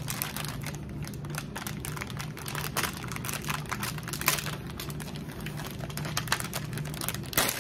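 Plastic packaging of a pack of mochi crinkling and crackling as it is opened by hand: many small irregular clicks.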